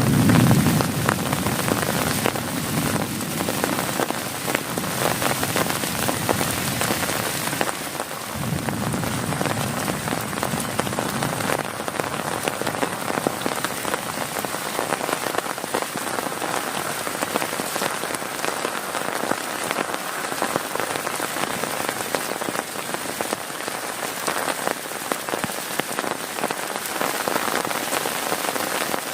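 Heavy rain pattering densely and steadily on a tent's plastic tarp. A low rumble swells under the rain at the very start and again about eight seconds in.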